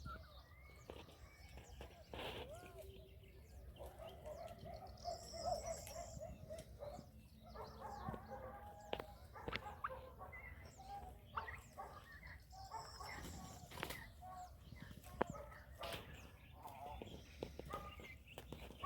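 A mixed flock of farm poultry, chickens among them, calling and clucking while they feed, with a few scattered sharp clicks.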